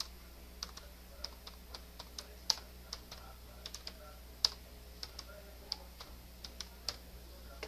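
Computer keyboard being typed on: a run of uneven key clicks as a line of text is entered, over a faint steady electrical hum.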